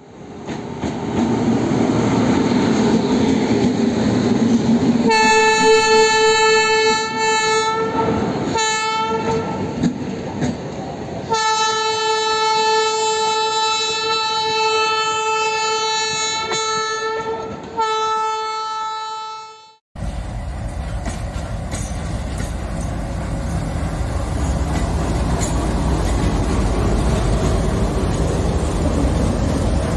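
Train running with a rumble, then a locomotive horn sounding one steady note in long blasts with short breaks for about fifteen seconds. The horn cuts off suddenly, and a steady running rumble of a train follows.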